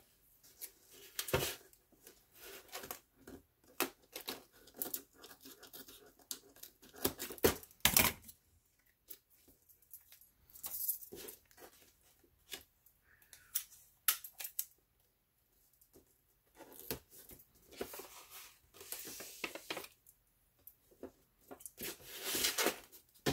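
Clear adhesive tape being pulled from a tape dispenser and torn off, with cardboard being handled and folded: a series of short ripping, scraping and rustling sounds and clicks, the loudest rip about eight seconds in.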